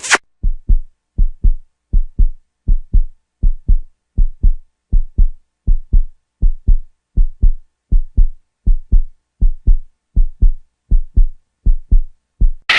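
Heartbeat sound effect: steady paired low thumps (lub-dub), about four beats every three seconds.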